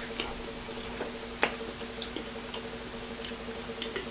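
Wet, squishy sounds of sauce-covered seafood being handled and eaten by hand, with scattered short clicks, the sharpest about one and a half seconds in, over a steady low hum.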